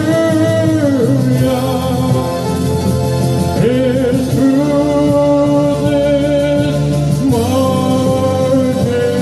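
A man singing into a microphone over backing music, holding long, steady notes and sliding into each new one.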